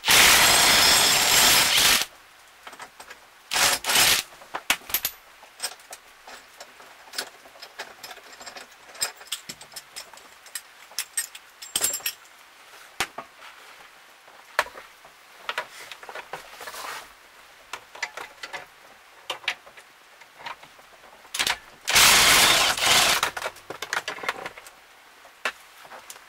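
A power tool runs in loud bursts while backing out long 14 mm steering-column bolts: about two seconds at the start, a brief one about four seconds in, and about two seconds more around twenty-two seconds in. Scattered clinks and knocks of tools and metal parts come in between.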